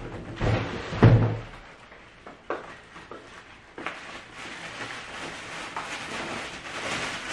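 Plastic wrapping rustling and crinkling as an air fryer part is unwrapped. Two loud knocks in the first second and a half, then scattered clicks, with the rustling growing in the second half.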